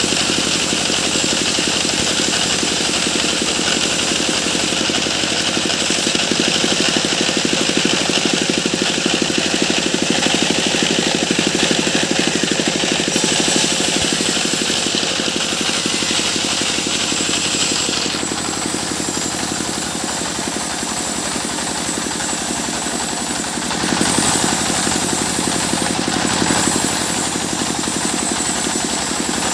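Sawmill machinery running steadily: an engine with a rapid even pulse, plus a high hiss that drops away about eighteen seconds in, and a further change in the sound about twenty-four seconds in.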